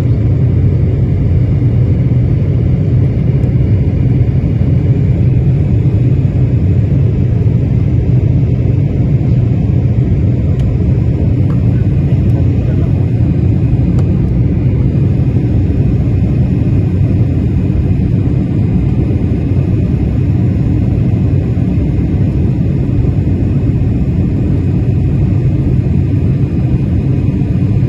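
Steady low rumble inside an airliner's cabin during the climb after takeoff: jet engines and rushing air heard through the cabin wall.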